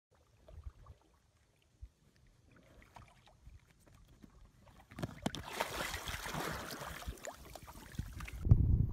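A small dog jumps from the bow of an inflatable kayak into a lake: faint knocks at first, then a splash about five seconds in followed by a few seconds of splashing water. Low thumps come near the end.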